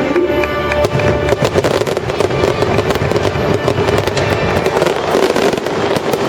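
Aerial fireworks finale: a dense, rapid barrage of bursts and bangs going off continuously, with the show's music faintly underneath.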